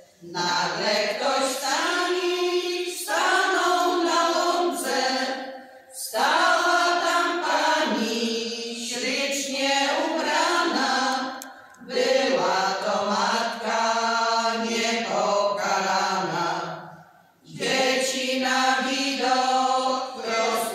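A women's folk choir of about ten voices singing a Polish folk song unaccompanied, in phrases of about six seconds with a short break between each.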